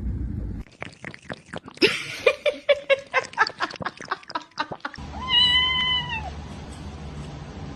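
A domestic cat meows once, a single drawn-out meow about five seconds in, after a run of quick clicks and crackles.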